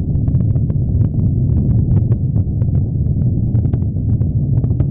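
Proton-M rocket's first-stage engines during liftoff: a loud, steady low rumble shot through with irregular sharp crackles.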